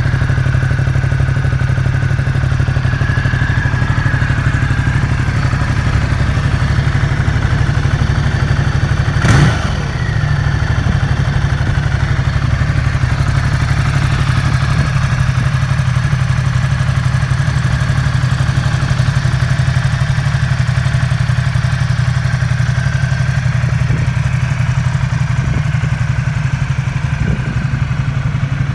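A 2018 Ducati Multistrada 1260's 1262 cc V-twin idling steadily. A single sharp knock comes about nine seconds in.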